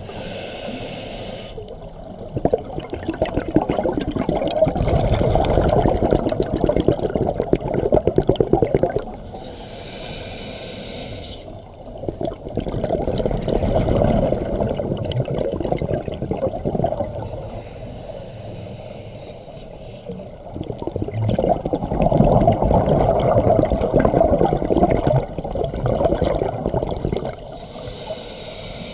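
Scuba diver breathing through a regulator underwater. Each breath is a short hiss of inhalation followed by several seconds of loud bubbling as the air is exhaled, and the cycle comes round about every nine seconds.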